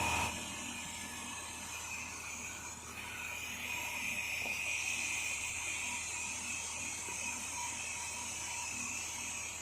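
A small machine running steadily: a constant hum with a high whine over it.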